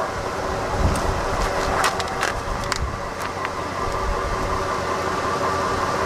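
Tow truck's engine running steadily with a steady whine held over it, and a few light clicks and clinks scattered through.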